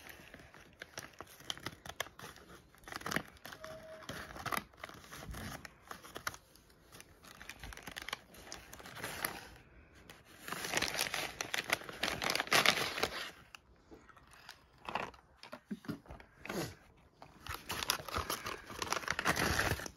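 Christmas wrapping paper being torn open and crumpled by hand, in irregular rips and rustles, loudest about halfway through and again near the end.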